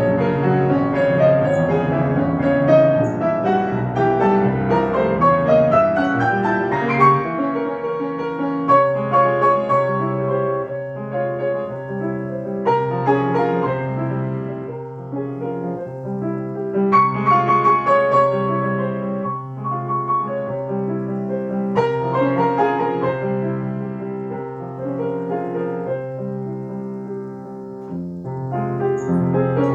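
Solo piano playing a classical piece: flowing broken-chord figures with a melody above, swelling and easing in loudness.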